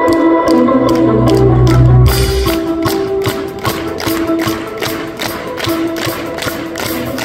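Live band music at concert volume: electric guitar and a drum kit. A deep bass note sounds for the first couple of seconds, then gives way to a steady ticking beat.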